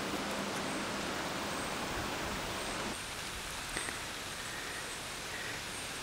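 Steady outdoor background hiss with a few faint, short high chirps; a faint low hum stops about halfway through.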